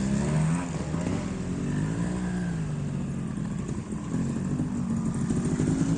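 Trial motorcycle's single-cylinder engine running with the throttle worked on and off, its pitch rising and falling several times.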